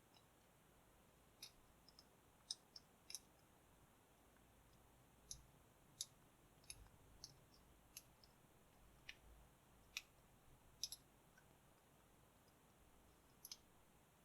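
Sparse, irregular small clicks of a half-diamond lock pick working the pins inside a Master Lock 716D bike lock during single-pin picking.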